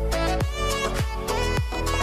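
Background music with a steady thumping beat, about two beats a second, under sustained melodic tones.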